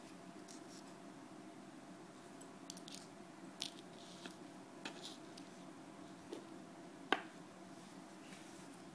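Quiet, scattered clicks and rustles of a wire spring method feeder, hooks and fishing line being handled on a tabletop, with one sharper click about seven seconds in, over a steady low hum.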